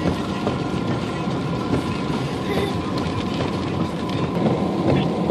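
Steady road noise inside a car driving through flooded streets: a low, even rumble of tyres running through standing water.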